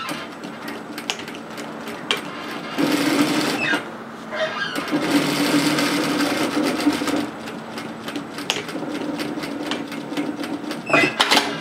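Straight-stitch sewing machine sewing a hem in two runs, the first about a second long and the second about two seconds, over a steady motor hum. A few sharp clicks come near the end.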